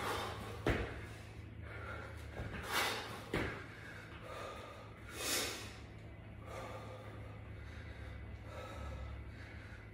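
A man breathing hard after a set of burpees, with two strong, sharp exhalations about three and five seconds in. A thud from the floor comes about a second in, and a lighter knock follows shortly after the first breath.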